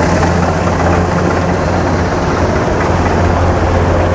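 Kubota rice combine harvester running close by during harvest: a steady low engine hum over the even clatter of its threshing machinery.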